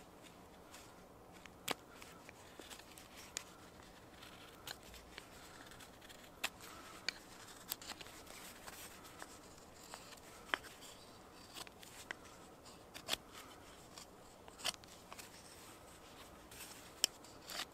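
Knife whittling a peeled stick of green wood: faint, irregular short cutting strokes and scrapes, roughly one a second.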